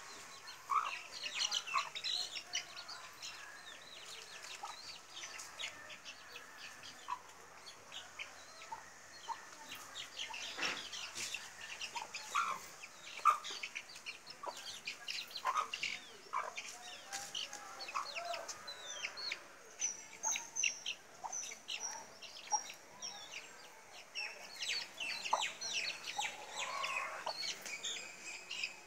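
An Aseel hen clucking in short, scattered calls, mixed with the high, quick peeps of a young chick.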